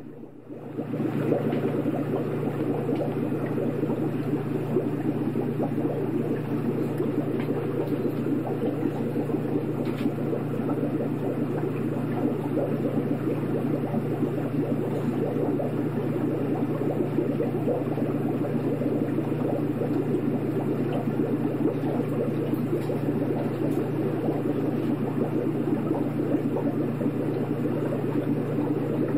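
Aquarium pump running: a constant hum with steady bubbling, churning water. It drops briefly at the very start, then carries on unchanged.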